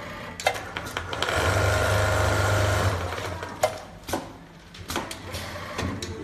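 CNC bar-tacking sewing machine running a rapid burst of stitches through a thick floor cushion to tuft it. The burst starts about a second in and lasts nearly two seconds, with sharp clicks from the sewing head before and after.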